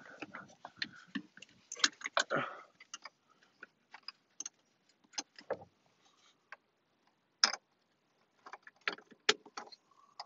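Hands working on parts inside a car's dashboard: irregular clicks, taps and light rattles of metal and plastic parts and tools, with the loudest knocks about two seconds in and again about seven and a half seconds in.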